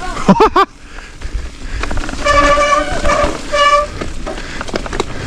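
Mountain bike disc brakes squealing in short, horn-like tones while the bike rattles and clatters over a rough, rocky descent. A quick warbling squeal comes right at the start, then steady squeals about two seconds in and again near the middle.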